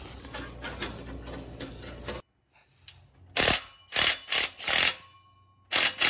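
Aftermarket exhaust pipe being forced by hand onto the connecting pipe under a car: low handling clatter, then from about two seconds in a series of short, loud metal scraping and clanking noises as the pipe joint is worked together.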